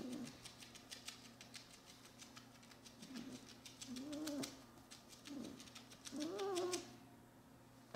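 A puppy scratching itself with a hind leg, making a fast run of small scratching clicks. From about three seconds in it gives about four short, low whines that rise and fall.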